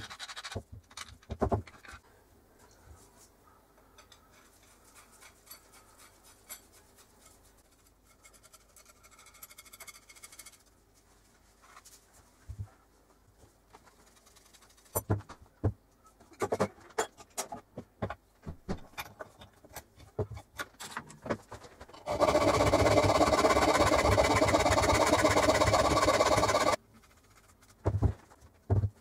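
Sharp clicks and taps of a screwdriver and small steel parts while an old geared hand crank drill is reassembled, coming in scattered clusters with a quiet stretch between. Near the end comes a loud, steady noise that lasts about four and a half seconds, followed by two more knocks.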